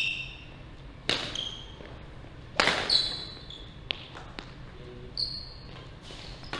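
Badminton rackets striking the shuttlecock during a rally: about five sharp hits, the loudest about two and a half seconds in, with short high squeaks of shoes on the wooden court floor.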